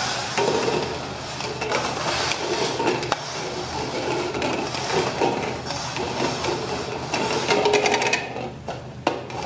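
Upturned red plastic party cups being slid and shuffled quickly across a wooden tabletop: a continuous scraping and rattling of plastic on wood, with a few sharp knocks as the cups bump and are set down.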